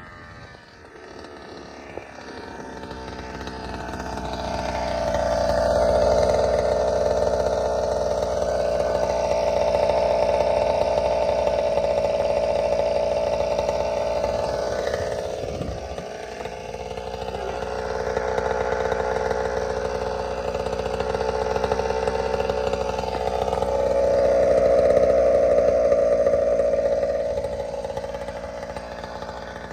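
Two-stroke gas engine of a large-scale Primal RC Raminator monster truck running: the engine note climbs over the first few seconds and holds high, drops briefly about halfway, then rises again and eases off near the end.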